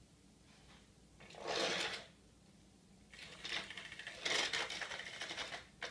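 Battery-powered TrackMaster toy engine running on its plastic track: the small motor and gears clatter densely, starting about three seconds in, after a short rustle of handling.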